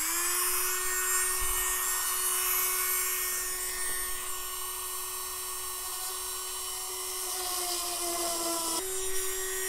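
Proxxon rotary tool running at speed with a steady high whine, its metal drill bit boring holes in soft aluminium sheet. The pitch sags slightly under load about seven seconds in, then jumps back up.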